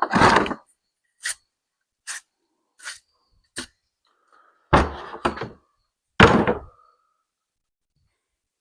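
A few light ticks roughly every three-quarters of a second, then three heavier knocks and thuds in quick succession, the last two with a short ringing tail, as items are handled and set down on a shop workbench.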